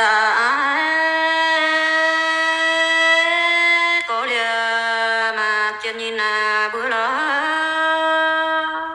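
A single voice singing a traditional Iu Mien song in long held notes. Each phrase opens with a wavering, ornamented slide before it settles, and the singing stops near the end.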